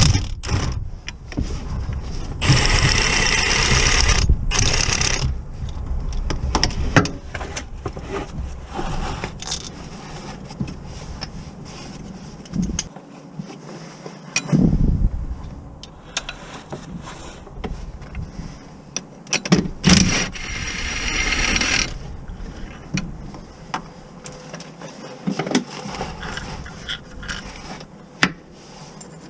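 Metal clinks, knocks and scraping as car parts and tools are handled, with two longer bursts of hissing, one a few seconds in and one about twenty seconds in.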